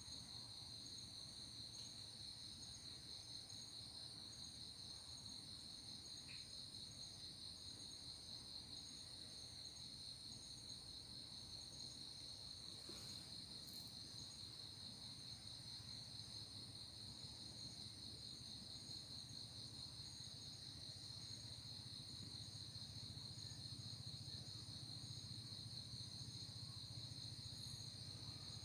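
A night insect chorus, cricket-like: a steady, faint, high-pitched trill that does not let up, with a faint low rumble underneath.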